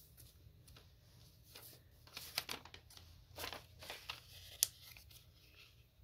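Origami paper being folded and creased by hand: soft rustling and crinkling, a run of crisp rustles in the middle and one sharp crackle late on.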